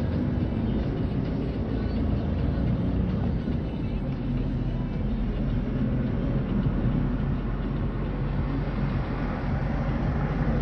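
Car engine and tyre noise heard from inside the cabin while driving at a steady speed.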